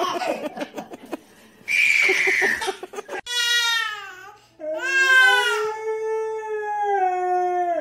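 A toddler's brief squeal, then a baby crying with a husky howling along. The howl is one long, steady note that falls slightly and holds for about three seconds before cutting off.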